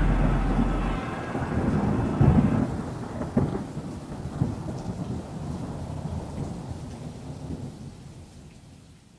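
Music stops about a second in, leaving a thunderclap with rain: a low rolling rumble with a couple of sharp cracks early on, fading away to near silence.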